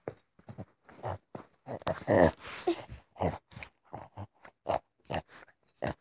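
Small dog play-biting at close range: a quick, irregular string of short noises from its mouth and breath, loudest about two seconds in.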